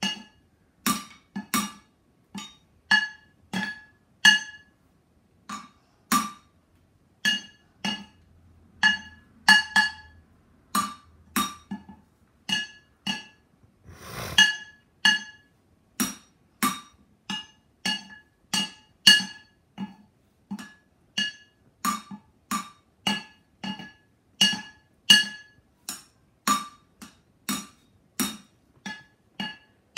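Wooden drumsticks striking two upturned cooking pots in a steady beat, about two hits a second, each hit ringing with a clinking metallic tone. A short noisy clatter comes about fourteen seconds in.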